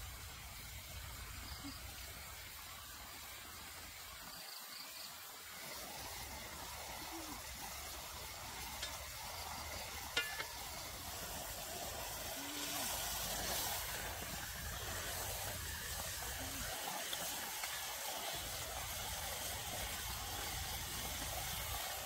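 Whole chicken sizzling in sauce in a wok over a wood fire: a steady frying hiss, with a single sharp tap about halfway through.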